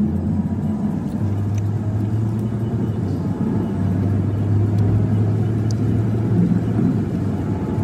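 A car running, heard from inside the cabin: a steady low engine hum over road and cabin rumble.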